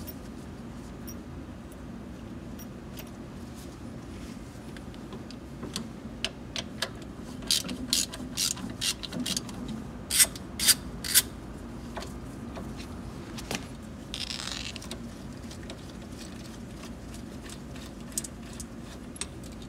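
Socket ratchet wrench with an extension clicking in short runs as a screw is backed out, with a brief rasp in the middle, over a steady low hum.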